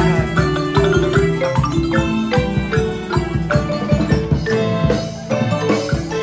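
Band music led by a marimba played close by with mallets, many quick struck notes over held notes from the horns and other mallet percussion.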